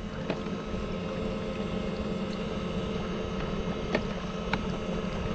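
Electric kayak under way: its brushless motor and propeller run with a steady hum over water and wind noise, with a few faint ticks.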